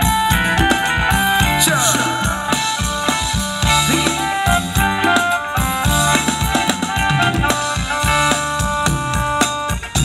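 Thai ramwong dance music from a live band, played loud through a PA speaker stack, with a steady drum-kit beat under held melody notes.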